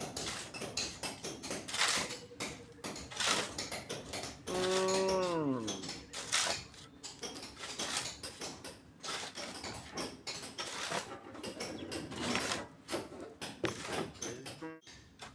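A cow moos once about four and a half seconds in, a held call that falls in pitch at the end. Around it are scattered clicks and knocks of handled tools or materials.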